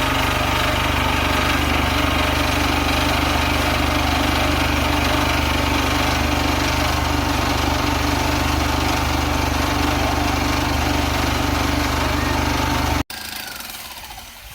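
Two engine-driven concrete mixers running steadily during a concrete pour, a loud, unchanging engine hum. It cuts off abruptly about 13 seconds in, leaving much quieter background.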